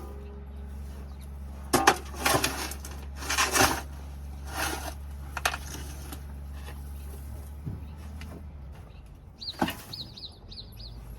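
Shovel scraping and scooping old litter and droppings off a chicken coop floor, in about half a dozen short strokes, over a steady low hum. A small bird chirps several times near the end.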